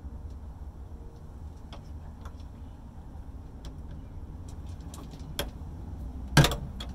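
Scattered faint clicks and taps, with one sharp knock about six seconds in, over a steady low rumble.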